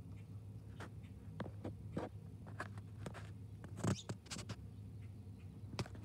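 Irregular sharp taps of a bird's beak pecking at a window bird feeder and its sunflower seeds, loudest about four seconds in, over a low steady hum.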